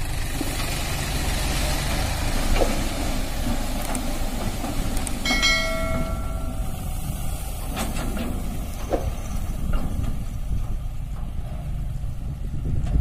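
Diesel engine of a John Deere 5104 tractor running steadily while its hydraulics tip a fully loaded trolley to unload soil. A brief high tone sounds about five seconds in.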